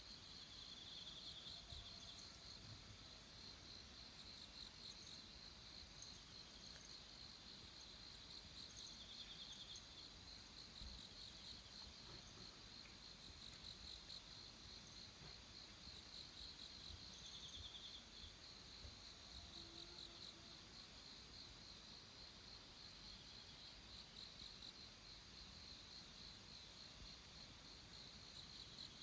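Faint outdoor chorus of insects such as crickets: a steady high-pitched trill, with separate pulsed trills coming and going every several seconds.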